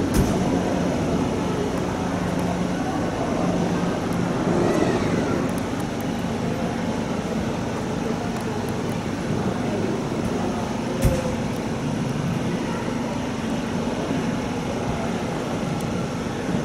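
A vehicle engine running steadily with a low hum, over outdoor background noise; a single sharp knock sounds about eleven seconds in.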